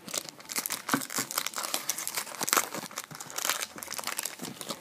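A hockey card pack's wrapper being torn open and crinkled in the hands, a dense run of irregular crackles and rustles.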